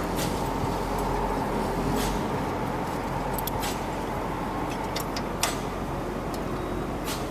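Cat 226B skid steer's diesel engine idling steadily, with a handful of sharp metal clinks as the lift arm brace's plate and pin are handled.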